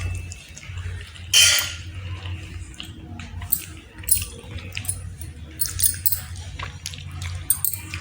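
Wet chewing and mouth sounds of someone eating chicken, irregular small clicks and smacks with a louder noisy burst about a second and a half in, over a steady low hum.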